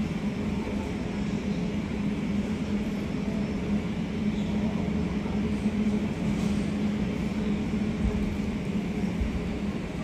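A steady low mechanical drone holding one constant low hum, with no separate events standing out.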